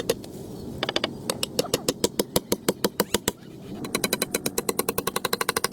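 A rapid series of sharp taps, about seven a second, then after a brief pause a faster run of about fifteen a second.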